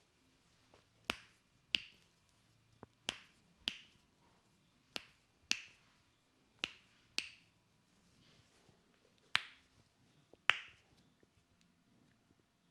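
Sharp snapping pops from a barber's hands-on massage, about ten of them, mostly in pairs about half a second apart.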